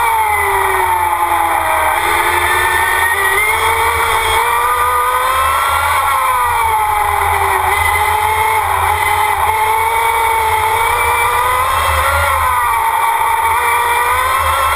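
Electric Formula Student race car's drive motor whining, its pitch falling and rising again and again as the car slows for corners and accelerates out of them, over wind rumble on the onboard microphone.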